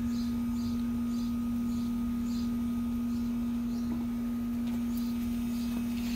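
A steady low hum, with short high chirps repeating about twice a second over it.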